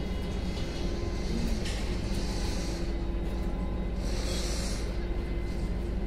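Construction-site machinery running steadily, a low engine drone with a few held tones, with brief hissing bursts about two seconds and four seconds in.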